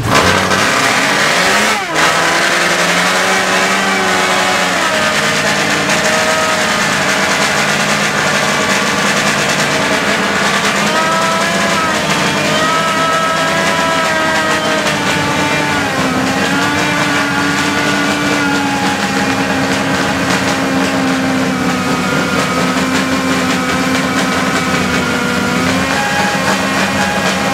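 Mercedes-Benz W25's supercharged straight-eight engine running loud just after a cold start, rough for a moment about two seconds in, then held above idle with the revs rising and falling again and again as it is blipped.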